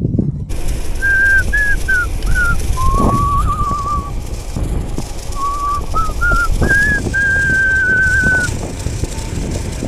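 A person whistling a tune: a few short notes, then long wavering held notes, the last one ending shortly before the end. Wind rumble on the microphone from riding sits underneath.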